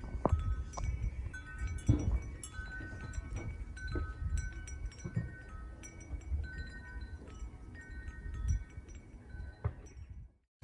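Wind chimes ringing irregularly in the wind, several pitches overlapping, over gusty wind rumbling on the microphone. The sound cuts off suddenly near the end.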